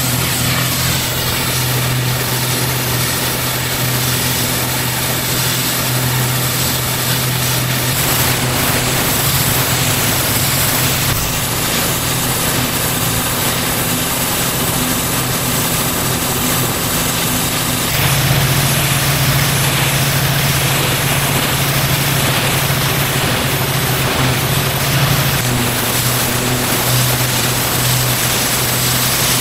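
Pressure washer engine running steadily under load, with the hiss of the high-pressure water jet on the driveway paving. The tone and hiss shift abruptly a few times.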